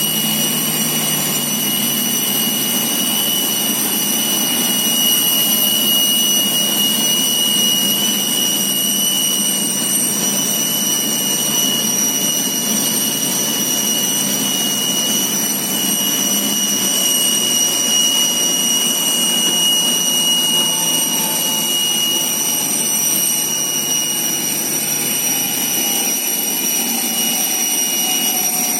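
Jet turbine running steadily: a constant rumble under a high-pitched multi-tone whine, with the lowest whine tone fading near the end.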